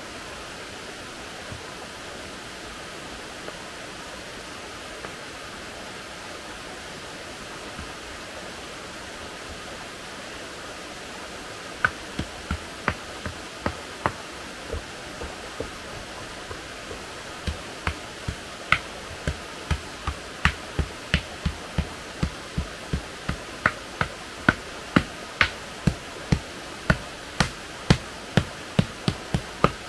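Steady rushing of a stream, and from about halfway through a run of sharp knocks, scattered at first, then about two a second and louder near the end: a hand tool striking the earth as the ground is dug.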